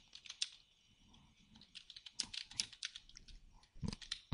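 Computer keyboard being typed on: soft, uneven key clicks, a couple at first, then a quicker run from about a second and a half in.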